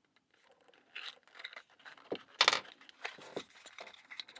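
Padlock packaging being torn and crinkled open: a run of short crackling and tearing noises, the loudest about two and a half seconds in.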